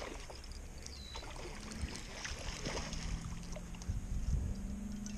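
Baitcasting reel being cranked to retrieve a lure, a steady low whir starting about one and a half seconds in. Wind rumbles on the microphone underneath.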